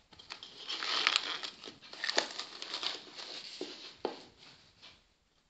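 Irregular rustling and crinkling with a few light clicks and knocks as a hand handles soft yeast dough in a ceramic bowl, dying away about a second before the end.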